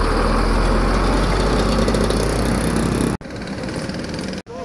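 An engine running steadily with a low rumble and a loud hiss. It cuts off abruptly about three seconds in, and a quieter stretch of similar noise and a brief fragment follow, each also cut off sharply.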